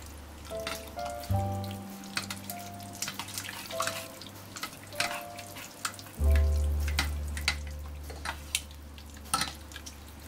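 Cappellini and tomato juice being tossed with tongs in a stainless steel pot: wet squelching and sharp clicks of the tongs against the pot. Background music with slow, held notes plays underneath.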